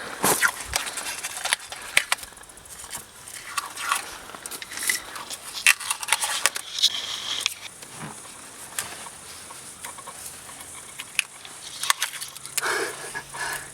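Plasti Dip being peeled and scraped off a wheel rim: irregular crackling and scratching with scattered sharp clicks.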